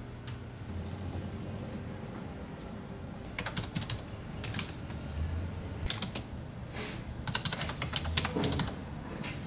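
Typing on a beige PC computer keyboard: quick bursts of keystroke clicks, sparse at first and coming thick and fast from about three seconds in, over a low steady hum.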